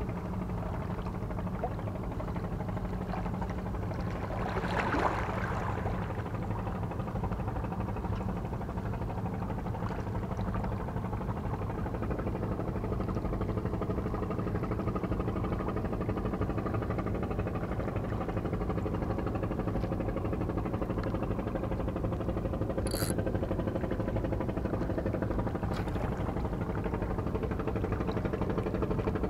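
A steady, low engine drone, with a brief louder swell about five seconds in and two short clicks near the end.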